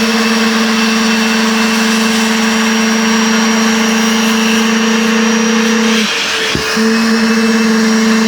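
Upholstery-washing wet vacuum running steadily, sucking water and dirt out of a fabric sofa: a broad rush with a steady hum that drops out briefly about six seconds in, then resumes.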